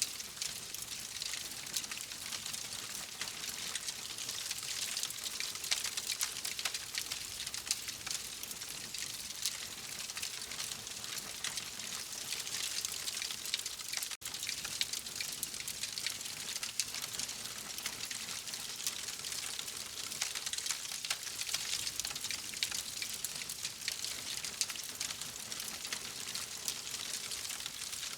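Wood fire crackling steadily: a constant hiss thick with small pops and snaps. It cuts out for an instant about halfway through.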